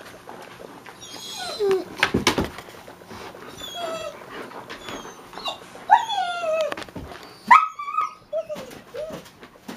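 Dogs whining and yipping in short, falling calls while they play tug of war with a sock, with a knock a couple of seconds in.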